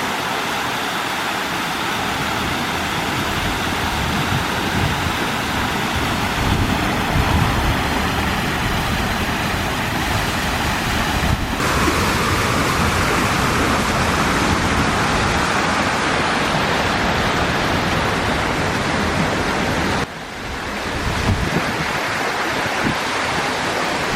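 Steady rushing of water pouring over a park waterfall, with a gusty rumble of wind on the microphone beneath. The rush shifts abruptly in tone a little before halfway and again near the end.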